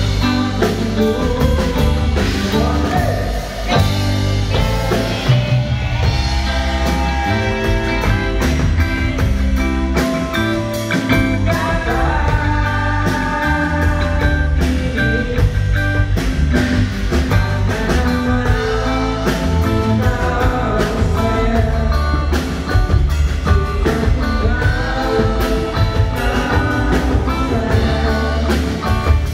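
A live band playing a song with singing throughout: a drum kit keeping a steady beat under bass guitar and keyboard, with a voice carrying the melody.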